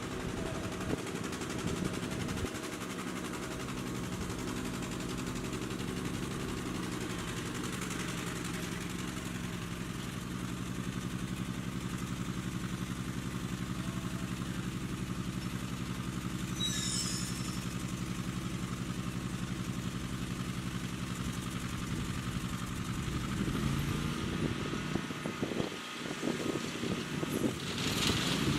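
Zero-turn riding mower's engine running steadily, then changing in pitch and level over the last few seconds.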